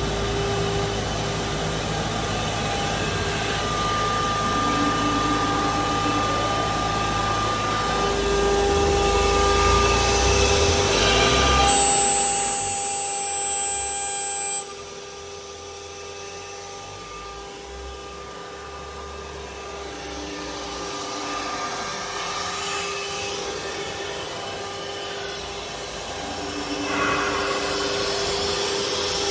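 ATC 4-axis swing-head CNC router running: a steady whine over machine noise. It drops sharply in level about halfway through and picks up again near the end.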